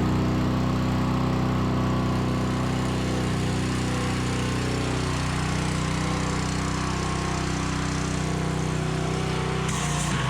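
An engine running steadily at a constant speed, with a hiss over it.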